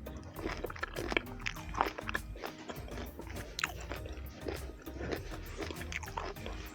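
Close-miked eating sounds: repeated biting and chewing, many short clicks and smacks, over faint background music.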